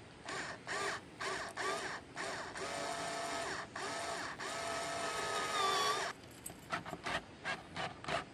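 Cordless drill driver spinning a wood hole saw into plywood, its motor whining in stop-start trigger bursts. A longer run in the middle rises in pitch as it speeds up, and near the end it is pulsed in a string of quick short bursts.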